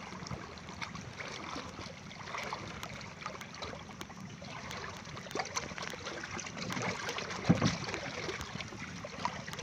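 Shallow seawater lapping and splashing, with small splashes close by, against the hull of a wooden outrigger boat. There is a louder bump about seven and a half seconds in.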